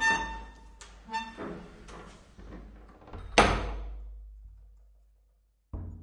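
Bomb shelter steel door lock being worked: a run of metallic clanks and clicks, some with a brief ringing tone. About three and a half seconds in comes a heavy thunk that rings away over a second or two, and one shorter thunk follows near the end.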